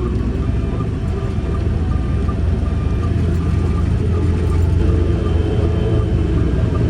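Heavy earthmoving machine's diesel engine running hard with a loud, steady low rumble that swells slightly about halfway through. A short beep repeats about every 0.7 seconds over it, like a machine's travel alarm.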